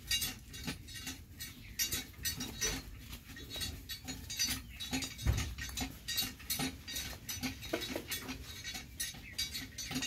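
Several rabbits munching fresh leafy greens and stems: a steady run of crisp, rapid chewing and crunching clicks, with a single low thump about five seconds in.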